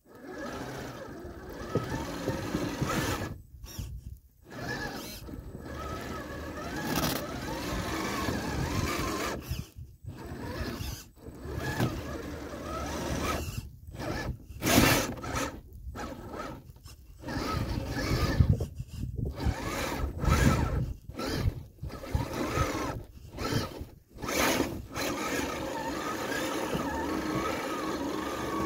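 Redcat Gen8 Scout RC crawler's electric motor and geared drivetrain whining as it drives its plow blade through snow. The sound starts and stops many times with short gaps as the throttle is let off and reapplied.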